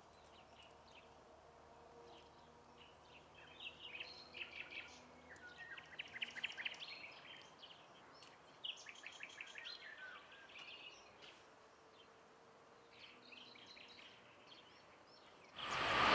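Several small songbirds chirping and trilling over quiet countryside. A second before the end, the loud noise of a passing train cuts in suddenly and swells.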